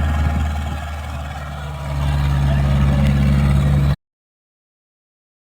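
Skid steer engine running steadily, its speed rising about two seconds in and holding at the higher pitch. The sound cuts off abruptly about four seconds in.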